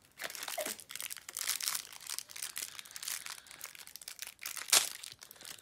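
Shiny plastic wrapper of a small L.O.L. Surprise packet crinkling as it is worked open by hand, with one sharp, loud crackle near the end.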